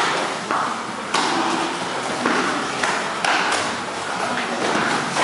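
Gloved punches and kicks landing during kickboxing sparring: several sharp smacks at irregular intervals over steady gym room noise.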